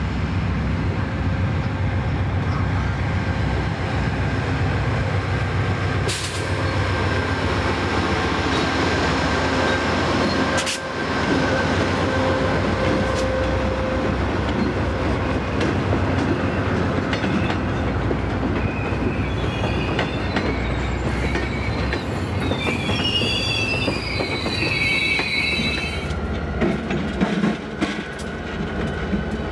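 Amtrak passenger train led by a P40 diesel locomotive passing close by, the locomotive and then the coaches rolling steadily over the rails. About two-thirds of the way through there is a high, wavering wheel squeal.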